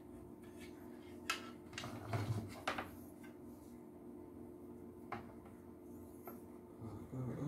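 Handling noise from a vacuum cleaner motor being turned over in the hands: a few scattered clicks and knocks of its metal and plastic parts, over a faint steady hum.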